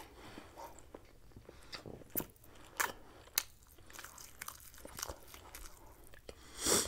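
Close-miked chewing and biting of grilled kabob meat, wet mouth sounds with scattered sharp clicks, and one louder burst just before the end.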